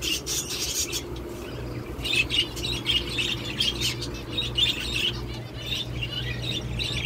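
Zebra finches chirping in an aviary: many quick, overlapping high chirps, thickest from about two seconds in, over a steady low hum.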